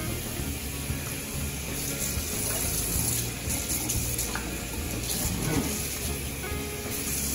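Kitchen faucet running steadily into a sink as a raw turkey is rinsed under the stream.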